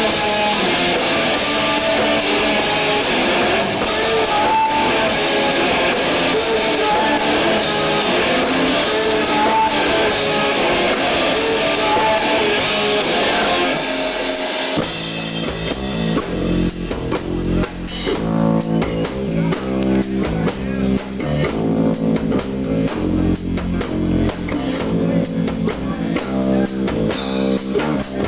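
Emo band playing live: electric guitar alone at first, then bass and drums come crashing in about halfway through for a heavier section.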